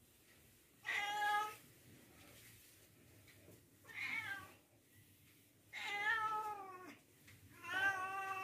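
A cat meowing four times, each meow under a second long and a couple of seconds apart.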